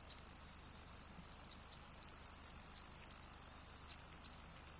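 Faint night-time insect chorus: a steady high-pitched cricket trill, with a low, rapid pulsing beneath it.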